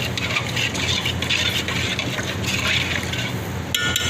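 Liquid swishing in a pot of rice and chicken broth, in repeated swishes over a steady low hum, with a sharp metallic clink near the end.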